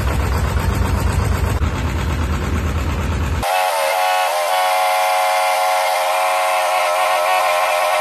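The homemade remote-control excavator's engine running with a steady deep rumble. About three and a half seconds in, the rumble cuts off abruptly and a steady whistle-like tone with several overtones takes over.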